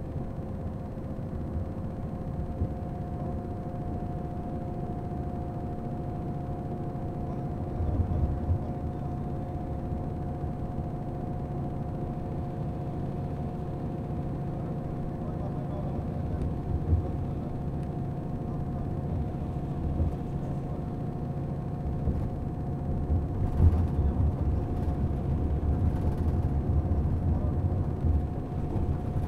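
Road and engine noise heard from inside a moving vehicle on a highway: a steady low rumble with a faint steady whine, and a few brief bumps and clicks near the end.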